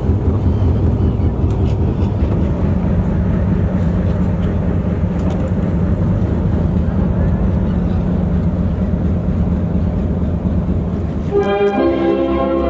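A boat's engine running steadily, a loud low rumble. Music with sustained notes comes in about a second before the end.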